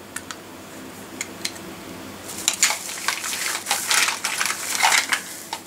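Old plastic and metal electrical plugs and adapters clattering and knocking together as they are rummaged through by hand: a few separate clicks at first, then a dense run of rattling clatter from about two seconds in.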